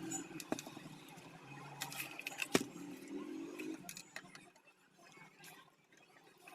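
A few sharp clicks and knocks of small metal parts and tools being handled, the loudest about two and a half seconds in, quieter toward the end.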